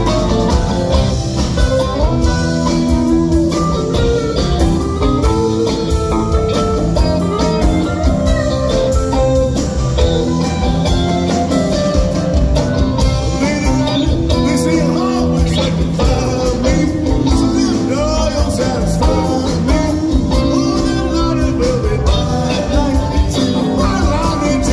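Live rock band playing, with electric guitars, drum kit and keyboards, and singing.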